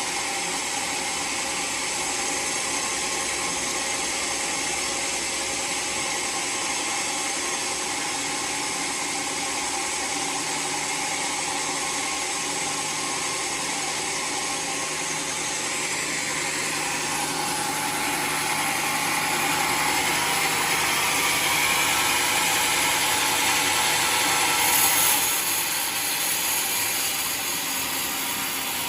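Homemade sawmill running steadily while its blade cuts through a waru log into plank. The cutting grows louder and sharper about two-thirds of the way in, peaks, then eases off a few seconds before the end.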